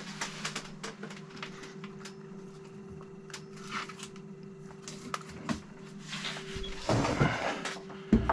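Scattered clicks, taps and rustling of LiPo battery packs being handled, with a louder knock and rustle about seven seconds in, over a steady low hum.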